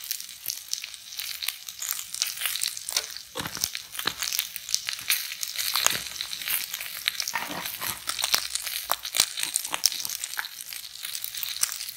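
Beef chunks frying in a little oil in a large pot, sizzling with many irregular crackles and pops.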